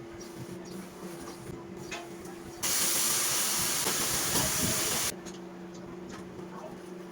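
A cleaning sprayer's jet hissing loudly for about two and a half seconds, starting and stopping abruptly, over a steady low hum.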